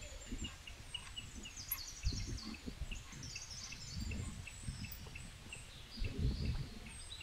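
Birds chirping and singing: a short chirp repeated about three times a second, with warbling song above it. Low rumbles come and go underneath.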